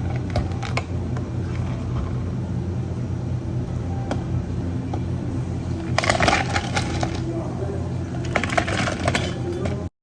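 Steady hum of cafe equipment with two short bursts of hard clinking and rattling, about six seconds in and again near the end, as drink-making items are handled.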